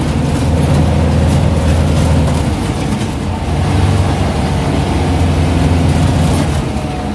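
Air-cooled Volkswagen Beetle engine running steadily, heard from inside the cabin while driving a rough dirt trail, with body rattles and gravel road noise over it.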